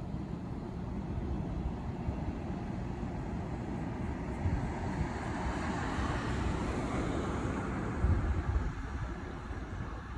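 A steady low rumble, with a car passing by that swells up in the middle and fades away.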